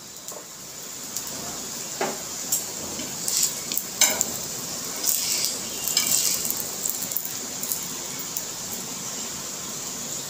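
Oil sizzling steadily under a paratha shallow-frying on a hot tawa, with scattered taps and scrapes of metal tongs on the griddle between about two and six and a half seconds in.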